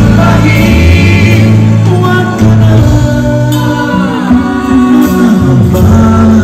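Live band music with a man singing a melody into a handheld microphone, with a strong electric bass line underneath.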